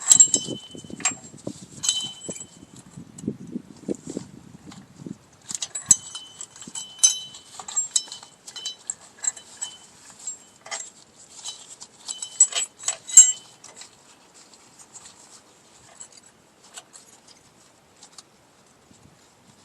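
Small metal parts of a drum brake assembly, springs and hardware, clinking and tapping against the shoes and tools as they are fitted, with short ringing jingles. The clinks come in clusters and peak about thirteen seconds in, then thin out to a few faint ticks.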